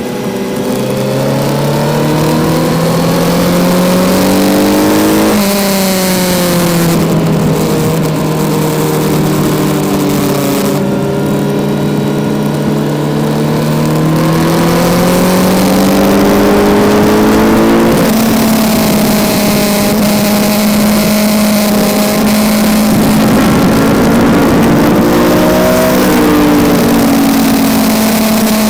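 Kawasaki Z900's inline-four engine on track at high revs, its pitch climbing under throttle and dropping sharply at three upshifts, with wind rushing past the bike.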